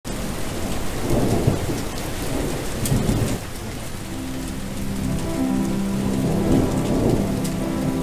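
Steady rain with low rolls of thunder about a second in, around three seconds and near the end. Soft sustained music notes come in about halfway.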